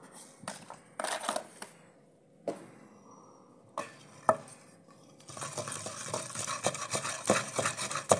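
Wooden pestle pounding a wet paste of onion, garlic and green chilli with spices in a clay pot. A few scattered knocks come first, then a dense, continuous run of pounding strokes starts about five seconds in.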